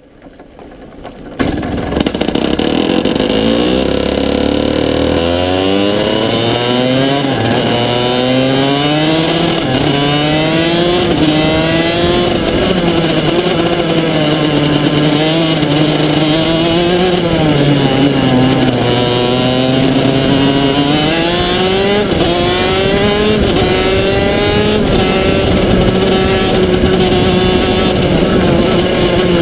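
125cc two-stroke shifter kart engine fires up about a second and a half in. It pulls away low at first, then climbs through the gears, the pitch rising and dropping back with each upshift. It then rises and falls with the throttle through the corners of a lap, heard from on board close to the engine.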